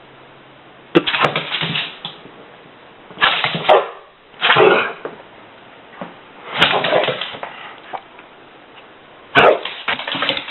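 A dog barking in five short bursts spread over about ten seconds.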